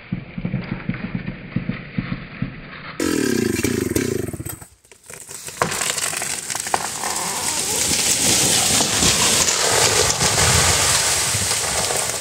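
Dry leaves rustling and crunching under a raccoon, then a chainsaw running briefly after a cut. From about five and a half seconds in, a felled tree cracks, splinters and crashes down through the branches, with loud, continuing breaking and rustling.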